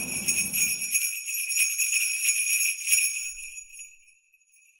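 Jingle bells shaken in a steady rhythm, a bright high ringing that fades away about four seconds in.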